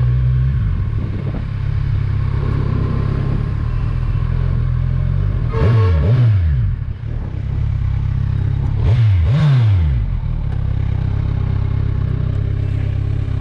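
Kawasaki Ninja 1000's inline-four engine and exhaust running while riding. Engine speed dips and climbs again twice, about six and nine seconds in, as the rider rolls off and gets back on the throttle.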